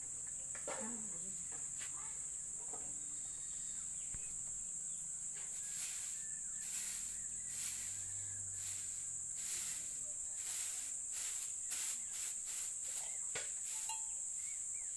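Steady high-pitched drone of insects, with short swishes of a grass hand broom sweeping ash from an earthen cooking stove, coming irregularly, roughly once a second, from about six seconds in.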